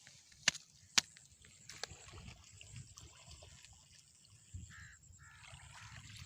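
Two sharp clicks half a second apart, then a bird giving several harsh calls near the end.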